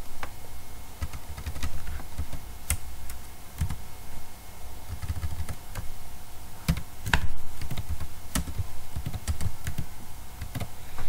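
Typing on a computer keyboard: irregular key clicks, with a louder cluster of keystrokes about seven seconds in.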